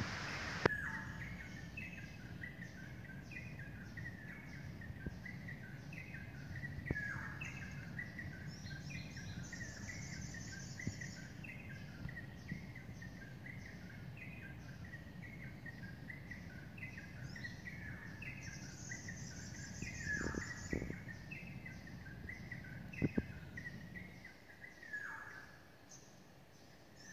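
Early-morning birdsong: a bird repeating short chirping phrases steadily, with a few falling, down-slurred calls, over a constant low background hum. A high insect trill comes in twice, and there are a few sharp clicks.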